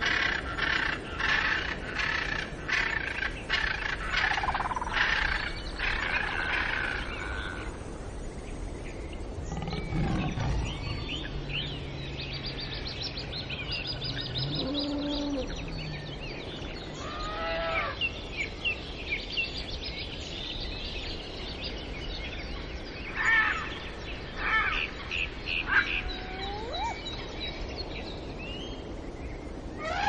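Wild birds calling and chirping over a steady outdoor background, opening with a fast run of repeated harsh calls and later scattered chirps and whistles. A low, drawn-out animal call lasting a few seconds comes near the middle.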